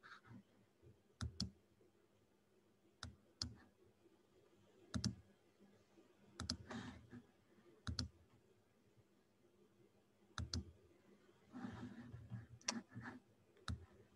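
Quiet room with faint, irregular clicks, about fifteen of them scattered singly and in pairs, and a couple of soft rustles.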